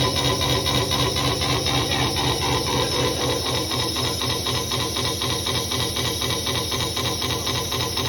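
CNC lathe turning stainless steel: the carbide insert cutting the workpiece, a steady scraping with fast, regular pulsing.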